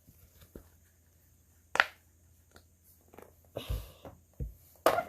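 Small objects being handled and set down: scattered sharp clicks and knocks, with a brief rustle and a low thump past the middle.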